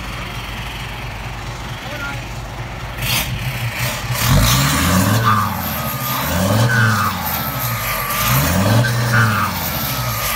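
Hino dump truck's diesel engine idling, then revved up and let back down three times as the truck works in loose dirt.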